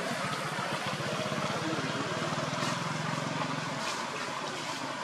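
A motor running steadily under a constant hiss, its low hum fading out about four seconds in.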